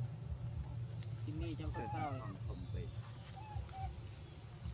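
Steady chorus of insects, crickets, trilling in two high bands, over a low rumble, with a brief bending voice-like call about two seconds in.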